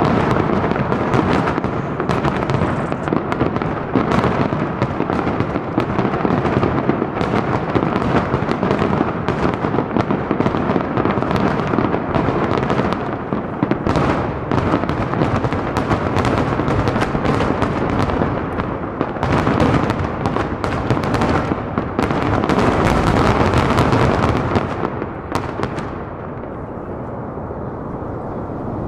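Aerial fireworks finale: a dense, continuous barrage of shell bursts and crackling over a heavy rumble. The bursts stop about 25 seconds in, leaving a fading low rumble.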